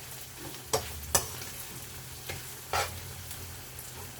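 Okra, onions and fresh pepper sizzling steadily in oil in a frying pan while being stirred, with a utensil knocking against the pan four times.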